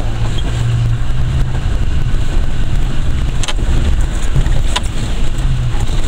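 Land Rover engine running steadily as it drives slowly over a rough, muddy forest track, heard from inside the cabin as a continuous low drone. Two sharp knocks come from the body about halfway through.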